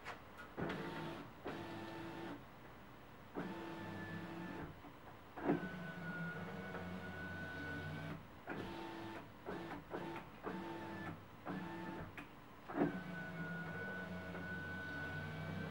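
2013 Ford F-150 power window motor running the door glass up and down, with the door trim panel off, in a test that the glass clears a newly fitted speaker and its wiring. There are several short runs and two longer runs of about two and a half seconds. Each run starts with a click and carries a steady motor whine.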